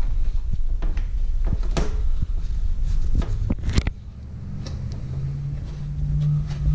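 Scattered sharp clicks and knocks of hand work on the mower over a steady low rumble. The rumble cuts off about four seconds in, and steady low notes of background music come in.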